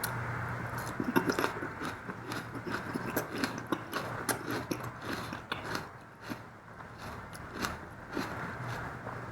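Close-up chewing and biting of mutton fat and curry with rice, with many irregular wet mouth clicks. A steady low hum runs underneath.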